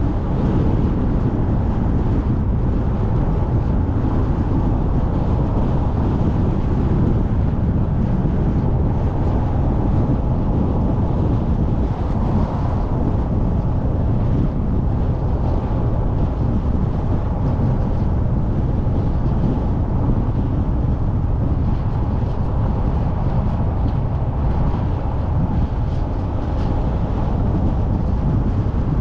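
A car driving along a paved road: steady engine and tyre noise with a deep rumble, even throughout.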